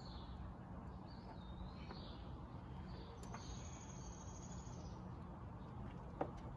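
Faint outdoor ambience: birds chirping, then a steady high-pitched insect buzz for a couple of seconds midway, with a single light click near the end.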